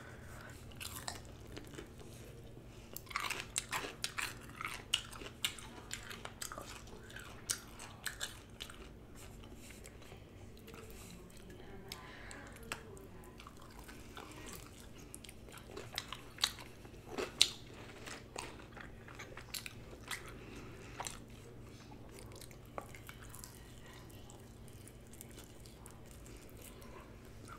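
Close-up chewing and biting into saucy chicken wings: wet mouth clicks and small crunches scattered throughout, in thicker runs about three seconds in and again past the middle. A faint steady hum sits underneath.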